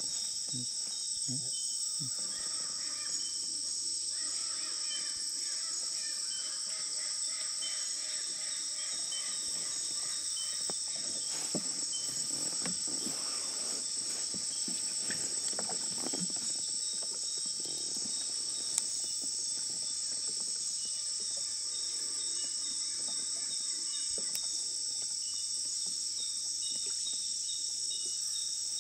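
Steady high-pitched chorus of insects in flooded rainforest, with short chirps repeating at an even pace just below it.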